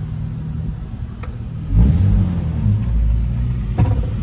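Nissan GQ Patrol's TB42 straight-six petrol engine heard from inside the cab: a low steady rumble while rolling along, growing louder about two seconds in as the engine note rises with acceleration. A short knock near the end.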